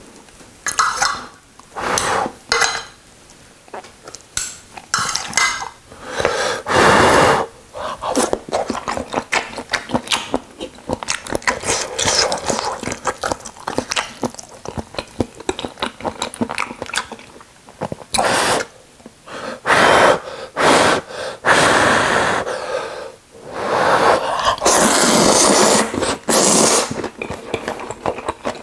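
A person eating ramyun noodles, slurping and chewing close to the mic, with chopsticks clicking on the aluminium pot lid. Several long, loud slurps stand out among the small clicks and mouth sounds.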